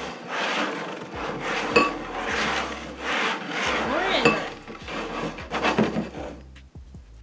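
Two upside-down plastic popcorn bowls being slid and shuffled around a wooden tabletop, giving a rasping scrape that swells about once a second as they are pushed back and forth. There are two sharp knocks, about two and four seconds in, and the scraping quietens near the end.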